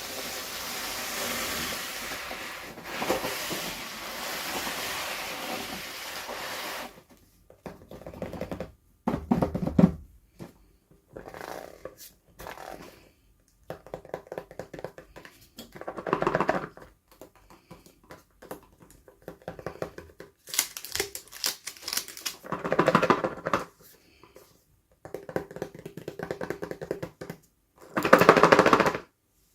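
Toy packaging being handled and opened: plastic and paper rustling and crinkling. A continuous stretch of rustling lasts about seven seconds, then comes in irregular bursts with short pauses between them.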